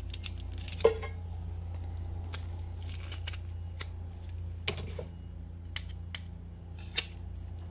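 Metal garlic press being loaded and squeezed: a few sharp metal clicks and scrapes from the press handles, the loudest about a second in and others near five and seven seconds, over a steady low hum.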